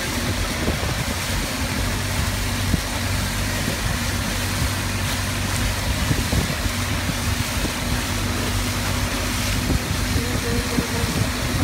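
Long-tail speedboat's engine running steadily at speed, with a constant low drone and the hiss of water spraying and rushing past the hull.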